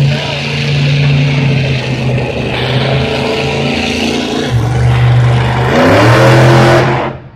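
Monster truck engine running loud, its pitch dipping and then revving up in a rising glide, cutting off suddenly near the end.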